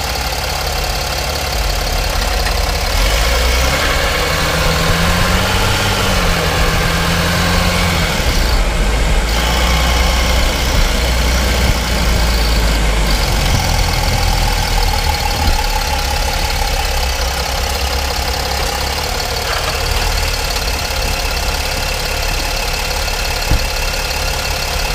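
Mercedes-Benz ML W164 on the move, heard from inside its wheel well: a steady rumble of road, tyre and drivetrain noise with hiss over it, and a low engine tone that rises and falls a few seconds in. There is a short sharp knock about halfway through and another near the end.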